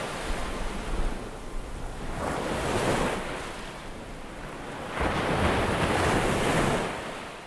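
Sea waves washing, in two swelling surges, fading out near the end.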